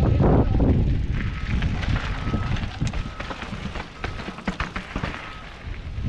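Wind buffeting the mountain bike's camera microphone, heavy for about the first second and then easing, with the tyres crunching over crushed gravel and the bike rattling and clicking as it rolls.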